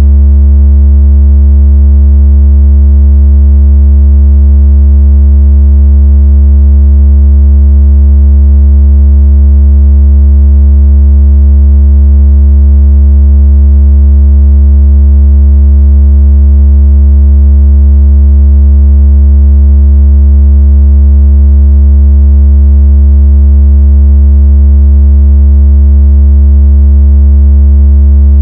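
A continuous, very loud, deep electronic tone held perfectly steady, with faint higher overtones above it: a synthesized bass tone of the kind played through a phone speaker to vibrate water out of it.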